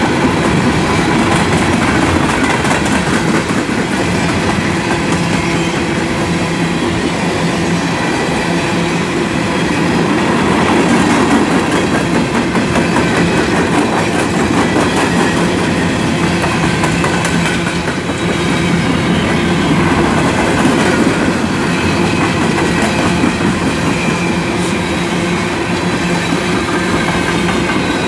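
CSX freight train of open-top hopper cars rolling past at close range: steady rumble of steel wheels on rail, with a dense clatter of clicks as the wheels pass over the rail joints.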